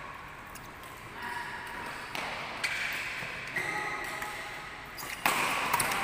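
Badminton being played: sharp pings of rackets striking the shuttlecock and the players' footwork on the court, with faint voices. The sound gets suddenly louder about five seconds in, as the rally picks up.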